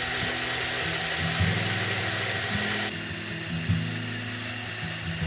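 Electric hand mixer whirring steadily, its twin beaters whisking liquid in a stainless steel jug. The whine becomes quieter about three seconds in. Background music plays over it.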